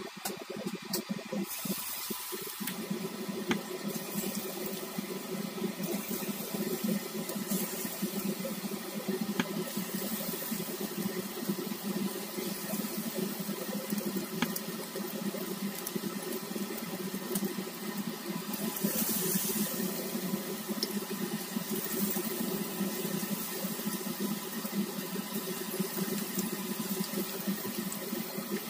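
Battered chicken pieces deep-frying in hot oil: a steady sizzle with scattered small crackles.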